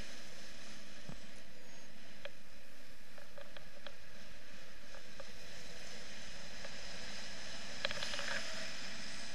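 Steady wind rushing over a camera carried by a paraglider in flight, with a few light clicks and a brief rustle about eight seconds in.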